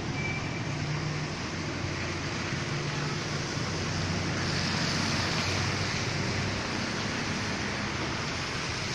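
Cars driving slowly through a flooded street: low engine hum under a steady hiss of tyres throwing up water, swelling about halfway through as a car passes close.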